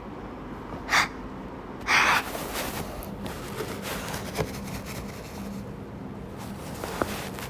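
A person taking two sharp, breathy gasps, about a second apart, then quiet room noise.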